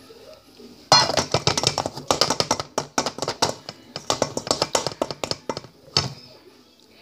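A plastic measuring cup scraping and knocking as flour is scooped. A rapid run of clicks and rustles starts about a second in and lasts several seconds, then a single sharp knock comes near the end.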